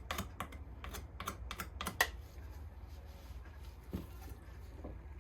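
Trigger spray bottle of paint stripper squirted in quick succession, a short hissy click about four times a second, stopping about two seconds in; afterwards only a couple of faint ticks over a low hum.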